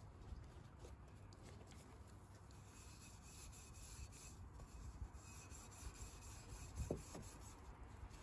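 Faint cloth rubbing and scrubbing on a car's metal exhaust tip as it is polished, with a couple of soft knocks near the end.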